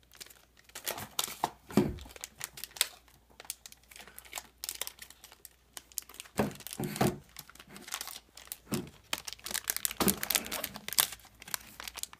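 Foil blind-bag packet crinkling in a child's hands and being torn open, in irregular crackles.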